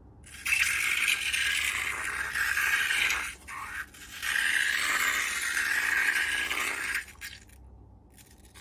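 Slime ingredients scraping and rattling in a container, in two long stretches with a brief break between them; the sound falls away near the end.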